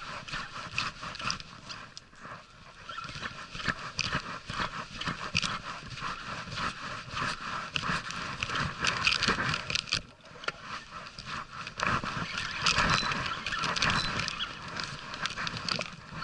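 Spinning reel being cranked and the rod worked while jigging, a dense run of clicks and scrapes close to the microphone.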